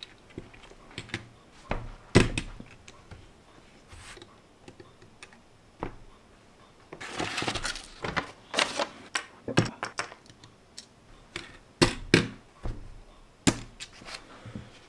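Irregular sharp clicks and knocks of small plastic LEGO pieces, metal tweezers and hands against a tabletop, with a paper rustle about seven seconds in. The loudest knocks come about two seconds in and again around twelve seconds.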